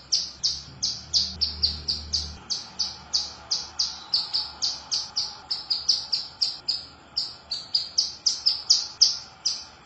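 Female ciblek gunung (a prinia) calling: a fast, unbroken series of short, high chip notes, about four a second. It is the call that bird keepers play as a lure (pancingan) to set other birds calling.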